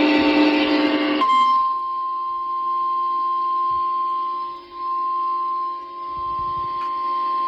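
A harsh, buzzy burst ends about a second in. It gives way to the single steady alarm tone of a National Weather Service warning, near 1050 Hz, which holds with a few brief dips in level.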